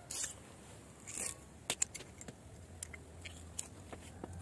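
Stainless steel garlic press being closed and squeezed over a glass bowl: a couple of short scrapes, then a handful of sharp metal clicks.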